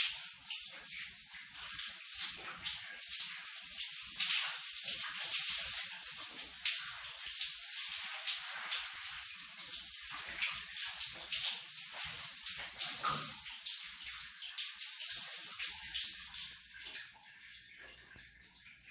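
Shower water spraying and splashing in an uneven hiss that falls much quieter about two seconds before the end.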